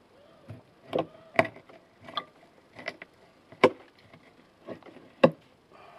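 A knife chopping down through a large wels catfish's body and spine into the wooden board beneath, cutting it into cutlets: about seven sharp knocks at uneven intervals.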